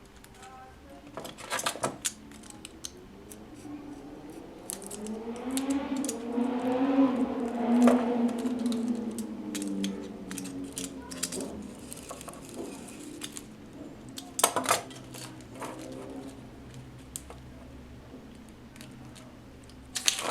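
Metal hand tools clicking and clinking against the opened casing of an 18650 lithium-ion cell as it is pulled apart, with sharp clicks about two seconds in, around two-thirds of the way through, and near the end. In the middle, a drawn-out pitched squeal rises and then falls over several seconds.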